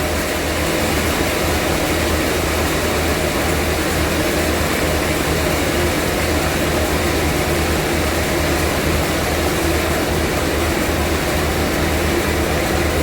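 Vintage sawmill machinery running steadily: a low engine drone under a dense, even noise.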